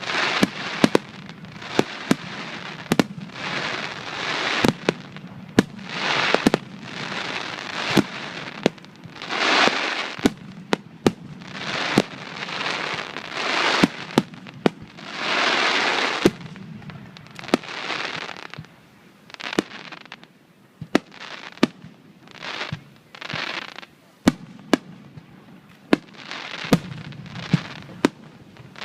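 Starmine fireworks barrage: shells fired in rapid succession, with dozens of sharp booms at uneven, often quick spacing and swells of hiss lasting about a second between them.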